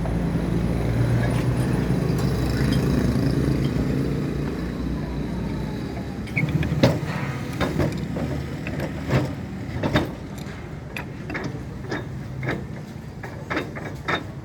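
An engine runs steadily and then fades out about five seconds in. It is followed by a string of sharp metal knocks and clinks, one or two a second, as parts are worked on.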